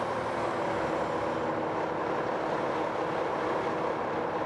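Steady machinery noise running at a constant level, with a faint hum under it.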